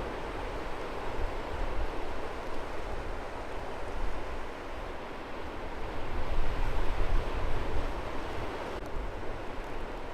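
Gentle sea waves washing onto a beach, a steady rushing wash that swells louder about six seconds in, with a low rumble of wind on the microphone.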